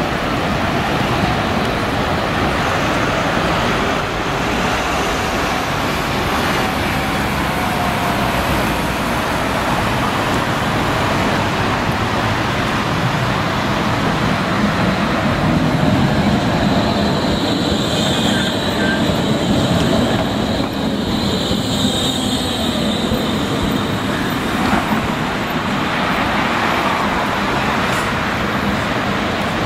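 Tram running along street track through city traffic, drawing nearer. A little past the middle a high-pitched squeal comes and goes twice, wheels squealing on the curved rails.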